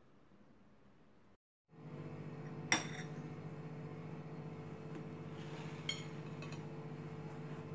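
A steady machine hum starts after a cut, under a sharp ringing clink of metal or glass near the start of the hum and two lighter clinks a few seconds later.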